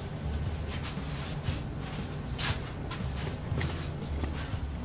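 Footsteps and the shuffle and scrape of the camera being handled while walking, with irregular clicks and scuffs, the strongest about two and a half seconds in, over a low rumbling background.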